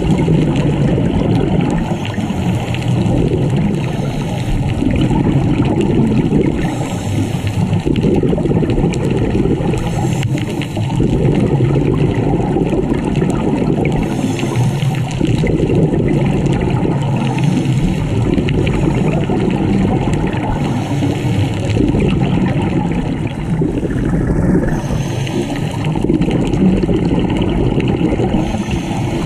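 Underwater, a scuba diver's regulator breathing: a bubbling rumble of exhaled air that swells and fades in a cycle about every three to four seconds.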